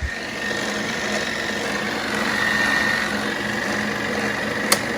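A 1940s RCA 16mm movie projector running steadily on its replacement spring drive belt, the motor and mechanism whirring with a thin high whine; the belt is turning and the drive is working. A sharp click near the end.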